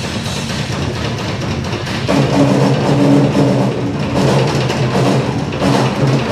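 Live rock band playing loud, drums with guitar and keyboards. About two seconds in, steady held low notes come in under the drums.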